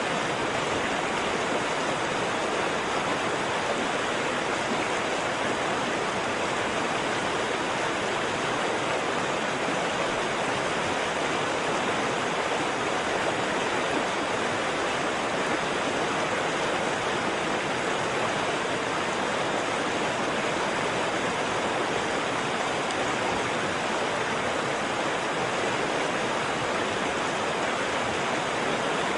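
Waterfall: falling water with a steady, even rush.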